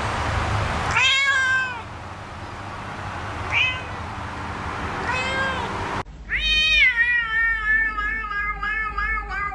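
Cat meowing: three short meows, then, after an abrupt change of background about six seconds in, a long drawn-out meow that wavers and slowly falls in pitch.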